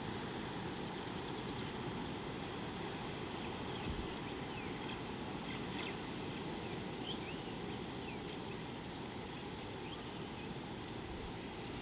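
Steady low rumble of wind on an outdoor microphone, with faint scattered chirps and short whistles of small birds calling in the distance.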